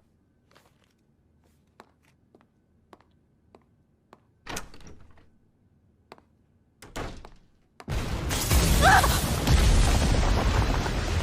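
Anime fight sound effects: a quiet stretch broken by scattered thuds and knocks, with two heavier hits in the middle. About eight seconds in, a loud, dense roar of noise starts and keeps on.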